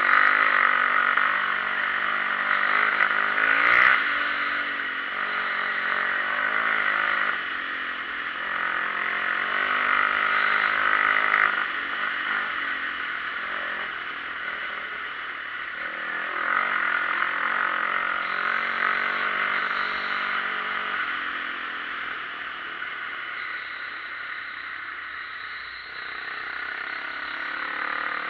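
Dirt bike engine running under way on a dirt road, its pitch rising and falling several times as the rider accelerates, shifts and eases off.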